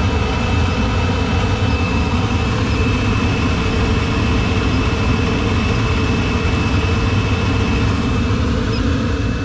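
Steady low rumble of gas-fired hot water boilers running, the just-restarted Laars Pennant among them with its new burners lit. A faint steady high tone runs over the rumble and stops near the end.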